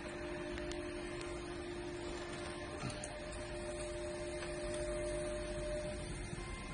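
Steady machine hum with a constant low tone, and a few faint clicks.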